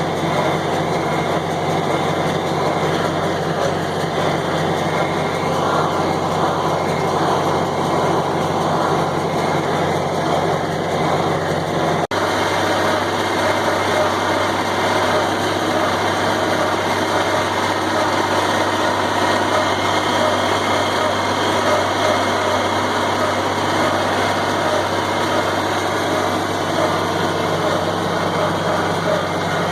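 John Deere 4020 tractor's six-cylinder engine running steadily under load while pulling a John Deere 327 small square baler at work. The sound breaks briefly about twelve seconds in, and the engine hum settles at a slightly different pitch afterwards.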